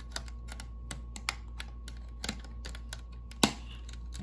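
Irregular light plastic clicks and taps of Snap Circuits parts and jumper-wire snap connectors being handled on the plastic base grid, the sharpest about three and a half seconds in.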